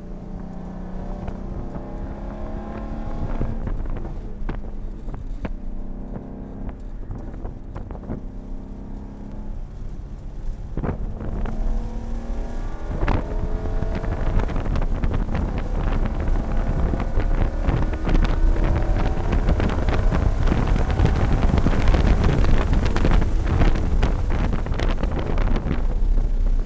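2017 Ford Shelby GT350R's 5.2-litre flat-plane-crank V8, heard from inside the cabin at full throttle on a race track. Its pitch climbs under acceleration and drops at each upshift. Wind and road noise build with speed, and it is loudest in the second half.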